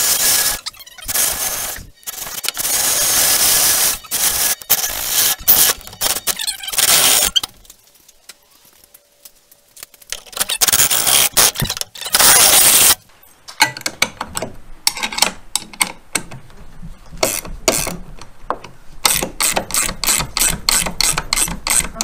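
Power drill boring through the steel sheet-metal bracket of a mower's grass bagger, in long bursts, stopping for a few seconds, then one more burst. About 14 seconds in, a ratchet wrench starts clicking in quick runs as the new bolt is tightened.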